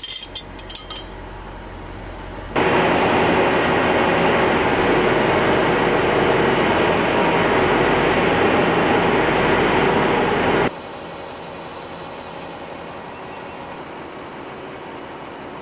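Steel wrenches clinking together at the start. Then a loud, steady rumbling din from an overhead workshop crane lifting a load on chains, which cuts off about ten seconds in to a quieter, steady machine hum.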